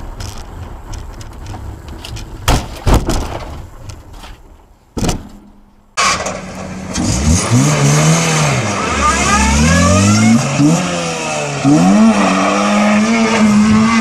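Car engine revving hard, its pitch rising and falling again and again from about six seconds in, over the hiss of tyres spinning on gravel. Before that, steady road noise with a few sharp knocks.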